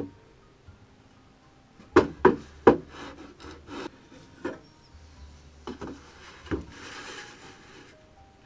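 Pieces of wood being handled: three sharp wooden knocks about two seconds in, then lighter knocks and rubbing, with a soft scraping sound near the end. The saw is not running.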